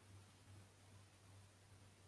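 Near silence: a faint, steady low hum under a light hiss.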